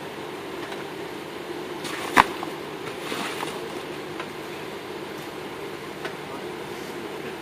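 Off-road 4x4 engine running steadily at low revs during a rock crawl, with one sharp knock about two seconds in.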